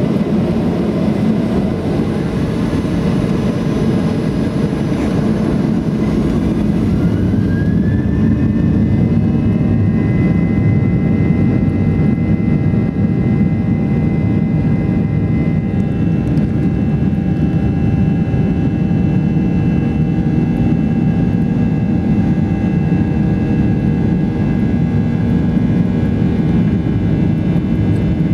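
Boeing 737-800's CFM56 jet engines heard inside the cabin over a steady low rumble. About seven seconds in, the engine whine rises in pitch as the engines spool up, then holds steady.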